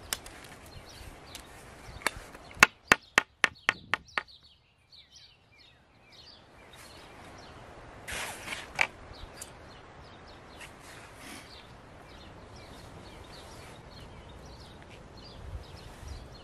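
A quick run of about seven sharp wooden knocks as the poles of a stick back-rest frame are knocked together to seat a joint, followed a few seconds later by a short rustle and one more knock. Birds chirp faintly in the background.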